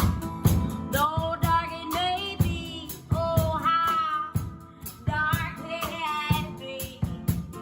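A woman singing a song over guitar accompaniment with a steady beat of about two hits a second.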